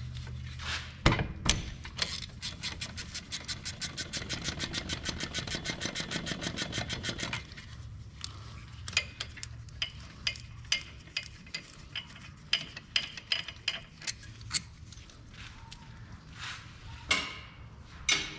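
A ratchet clicking rapidly and evenly for about five seconds as a 10 mm brake caliper bolt is backed out, then scattered metallic clicks and knocks as the caliper is worked off its mount.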